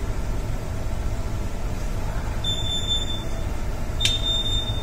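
Electronic alarm buzzer giving two high, steady beeps, each just under a second long, the second starting with a sharp click, over a steady low machinery rumble.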